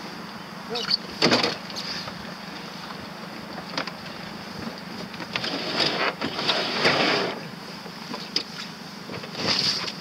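Water splashing and slapping against a small boat's hull, with louder surges about a second in and again around six to seven seconds, over a faint steady hum.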